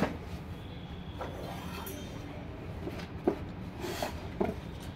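Handling noise from packing: foam packing sheets and decorative items rubbing and shifting, with a few light knocks as things are picked up and set down, the sharpest about three seconds in and near the end.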